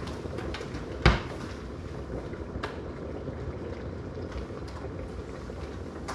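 Steady low rumble with scattered light clicks and one loud sharp knock about a second in.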